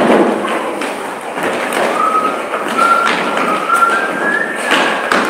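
Many performers' feet running, scuffing and stamping on a wooden stage floor, a busy clatter of thumps and taps. From about two seconds in, a thin high tone steps upward in pitch several times, stopping near the end.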